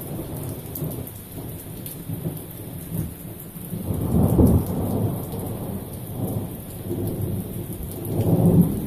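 Thunder rumbling with rain falling steadily. The rumble swells about four seconds in and again near the end.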